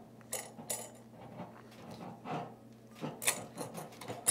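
Light metallic clicks and scrapes as the Kinetic Water Ram's handle and trigger assembly are turned and worked loose on its chrome barrel, with a sharper click near the end.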